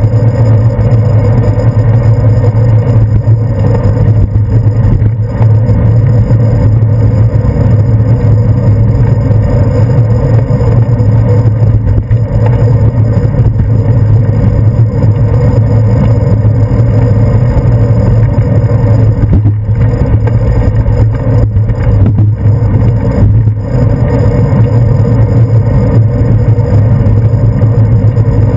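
Bicycle riding noise picked up by a handlebar-mounted GoPro Hero 2 in its housing: a loud, steady low rumble of wind on the microphone and road vibration from the tyres and handlebars.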